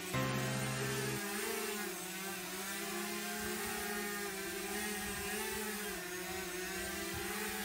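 DJI quadcopter drone hovering, its propellers giving a steady whirring hum whose pitch wavers slightly. Background music ends about a second in.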